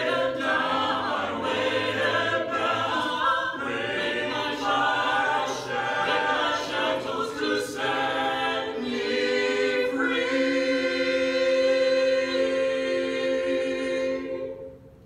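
Six-voice mixed a cappella ensemble (bass, baritone, tenor, alto and two sopranos) singing in close harmony. The low bass part drops out about nine seconds in. The voices then hold one long chord that fades and stops shortly before the end.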